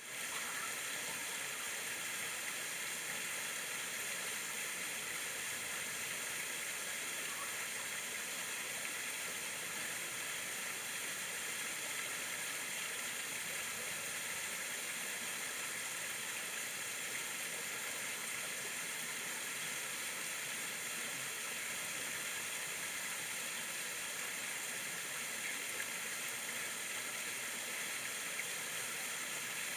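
Water of a mill stream rushing steadily, an even hiss without any clacking.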